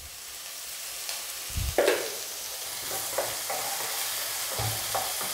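Sliced shallots, tomato and green chillies sizzling in hot coconut oil in a nonstick pan, a steady hiss broken by a few scrapes of a spoon or spatula stirring through them, the loudest about two seconds in.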